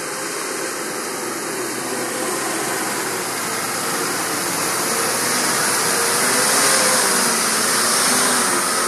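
Tata truck's diesel engine running as the loaded truck drives through deep mud toward and past, with a wavering engine note. It grows louder as the truck nears, loudest about two-thirds of the way through, then eases a little.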